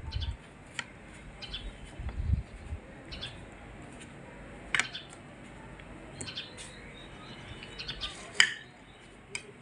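A metal spoon clinking and scraping against a ceramic plate in scattered light ticks, one sharper clink near the end, with birds chirping in the background and a couple of low bumps early on.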